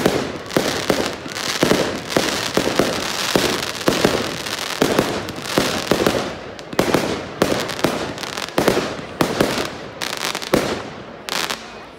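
Fireworks display: a rapid string of bangs from bursting shells, about two a second, over a continuous crackle, thinning out near the end.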